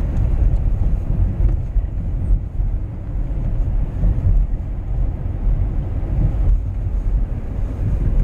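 Steady low rumble of a van driving along, engine and tyre noise heard from inside the cabin.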